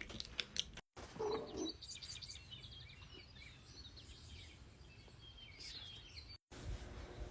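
Faint bird chirping in the background, many short high chirps, with a brief low sound about a second in.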